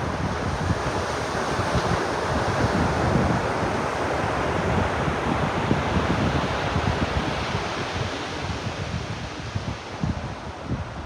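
Ocean surf washing onto a beach, a continuous rush that swells through the middle and eases toward the end, with wind buffeting the microphone in low gusts.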